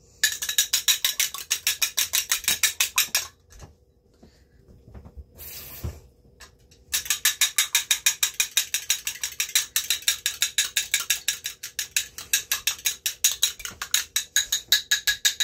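A fork beating egg with a little water in a small cup for an egg wash, making rapid, even clicking against the cup's side. It comes in two bouts: about three seconds, a pause, then about eight seconds more.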